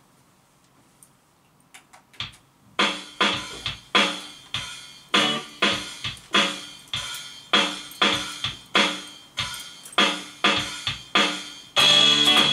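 A keyboard's built-in drum-machine backing track starts up after a few faint clicks, playing a steady beat of short hits with chords, a little under two a second. Near the end, electric guitar strumming comes in over it.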